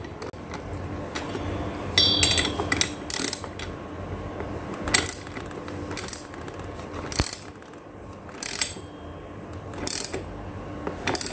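Ratchet socket wrench clicking in short bursts, roughly one every second, as it tightens the 14 mm clamp nut of a bicycle saddle on its seatpost.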